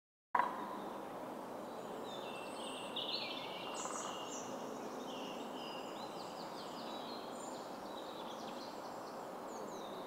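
Songbirds singing, many short high phrases overlapping, over a steady outdoor hiss of woodland.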